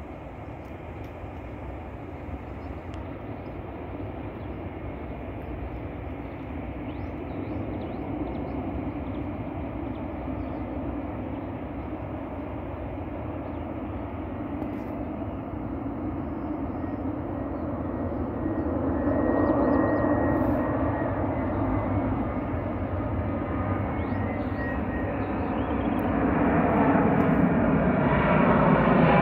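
Boeing 787 airliner on final approach with its landing gear down, its jet engine noise growing steadily louder as it comes in low overhead. A faint steady whine joins the rumble about two-thirds of the way through.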